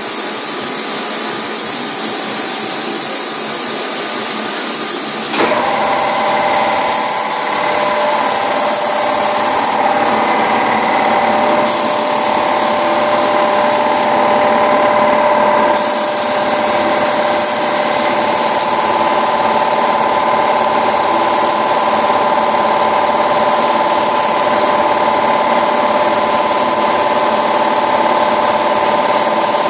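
Compressed-air paint spray gun hissing steadily as a coat of blue paint is sprayed on a car body. The high hiss drops away briefly twice, about ten and fourteen seconds in. From about five seconds in, a steady hum with a whine runs underneath.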